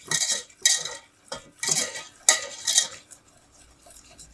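Wire whisk scraping and stirring around a stainless steel pot of partly melted sugar, in about five strokes roughly two a second, stopping about three seconds in. The sugar is melting into a dry caramel and the lumps are being worked into the melted part.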